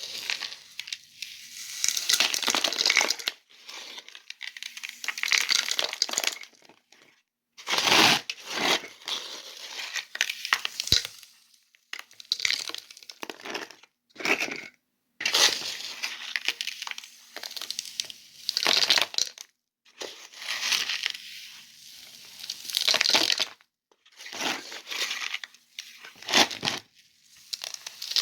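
Sand and pebbles crunching and grating in separate bursts of one to three seconds, about a dozen of them with short gaps between.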